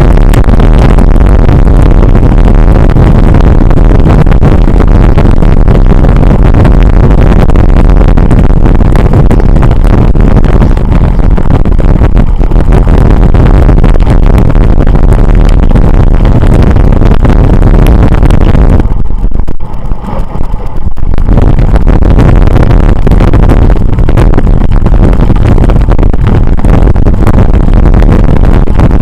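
Heavy wind noise buffeting the microphone of a camera on a moving rider, with a short lull about two-thirds of the way through.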